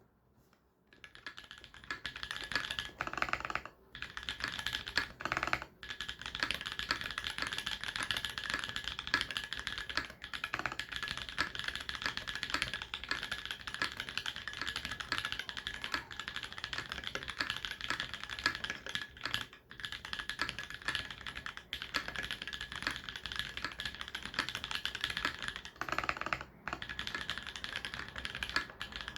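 TX84 mechanical keyboard with Holy Panda tactile switches and a polycarbonate bottom case, typed on steadily in a fast, continuous stream of key clacks. There are a few short pauses in the typing.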